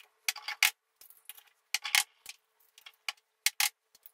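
Eggs being cracked by hand: a series of short, sharp clicks and taps of eggshell against the rim of a small ceramic ramekin.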